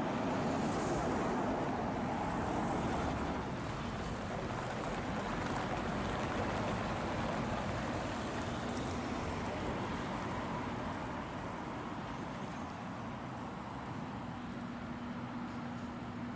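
Heavy lorry engine and road noise, loudest at first and slowly fading. A steady low drone comes in near the end.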